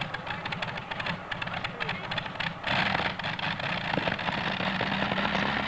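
Modified pulling tractor's engine running with a fast, uneven crackle. About two and a half seconds in it gets louder and fuller, as if revved up.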